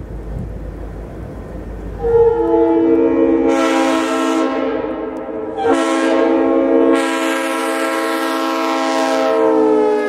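Leslie RS3L three-chime air horn sounding a loud, steady chord that comes in about two seconds in, after a low rumble. It is blown again sharply just before six seconds, and its pitch sags slightly near the end.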